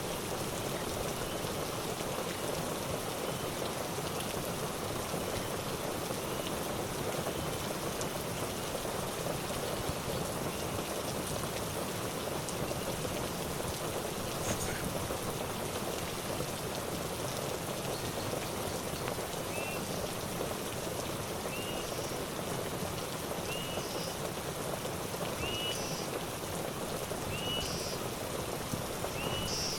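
Steady rain hiss with no let-up. A short repeated chirp sounds about once a second, faint at first and clearer in the second half.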